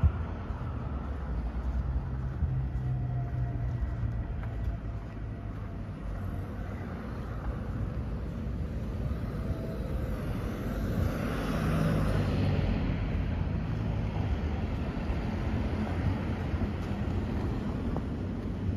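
Outdoor ambience: a steady low rumble with a hiss of noise above it, swelling louder about eleven seconds in and easing off again a couple of seconds later.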